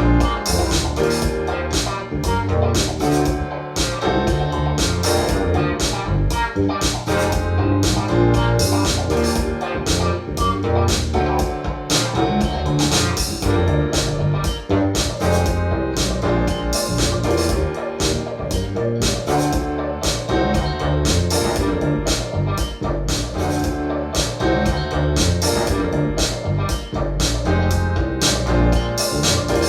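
Music played through SABA 1300 Professional vintage hi-fi loudspeakers, with a steady beat of about two strikes a second over strong bass.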